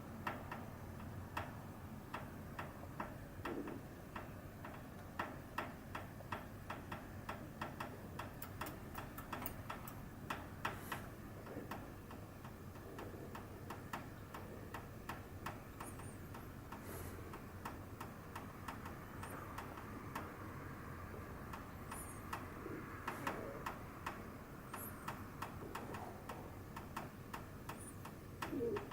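A finger tapping on a hard surface, a light 'ton-ton' knocking in an irregular series of taps, with a quicker run of taps about eight to ten seconds in.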